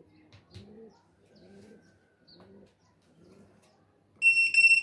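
About four seconds in, a FALCO RFID card reader gives a loud, high, short beep as a card is presented, the reader's signal that the card has been read and accepted. Under it, a bird coos low and repeatedly in the background.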